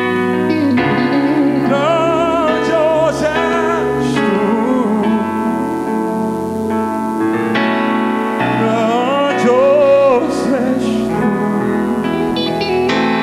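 Live gospel music: a male singer sings long held notes with a wavering vibrato over sustained keyboard chords and the band.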